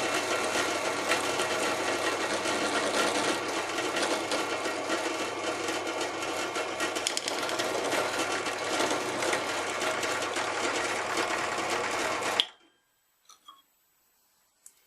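Electric drill running steadily under load, drilling the hole in a finned heatsink that is then to be tapped. It is switched off and stops suddenly about twelve seconds in, followed by a few faint clicks.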